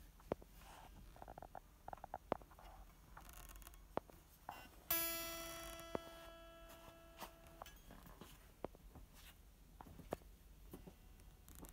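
A single guitar string plucked about five seconds in, ringing clearly for about two and a half seconds and then stopping. Around it, faint scattered clicks and taps of the strings and neck being handled.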